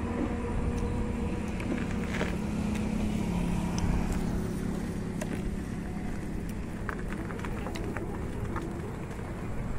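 A motor vehicle's engine hum over a steady low road rumble, swelling a few seconds in and easing off toward the end.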